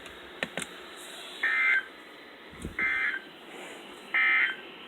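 An electronic buzzer beeps three times: short, equal, high beeps about a second and a half apart.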